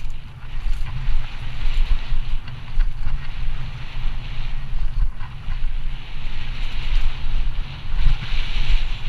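Wind buffeting the microphone of a camera on a mountain bike ridden fast along a loose, gravelly dirt trail, over the steady rolling crunch and hiss of the tyres on the gravel.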